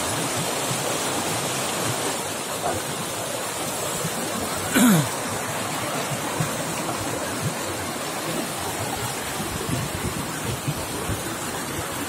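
Mountain stream rushing over rocks: a steady, even rush of water. About five seconds in there is one brief, louder sound that falls in pitch.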